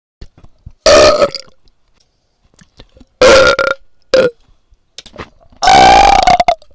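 A person burping loudly four times: two half-second burps, a brief one, then a longer burp of about a second near the end.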